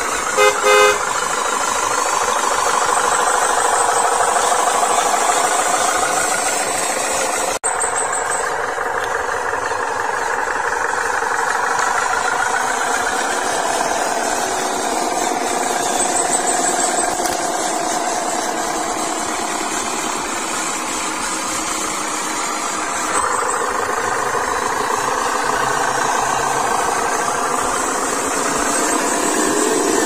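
Truck engine sound from RC model trucks, running steadily with its pitch wavering up and down, and a short horn toot just under a second in. The sound drops out for an instant about seven and a half seconds in.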